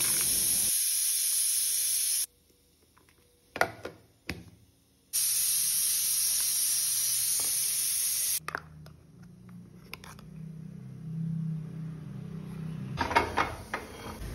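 Mixer grinder running steadily, grinding small onions, dry chillies, garlic and coconut into a paste in its stainless-steel jar. It stops abruptly about two seconds in, with a couple of sharp clicks in the pause, then runs again for about three seconds and cuts off. Quieter clicks and rattles follow.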